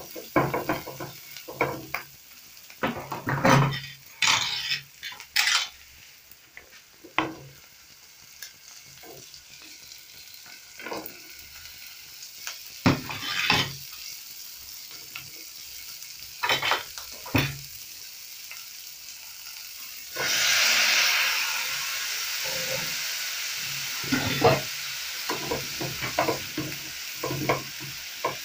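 A spatula stirring and scraping vegetables around a non-stick frying pan, with oil sizzling underneath in irregular strokes. About two-thirds of the way through, the sizzle suddenly grows louder and stays loud.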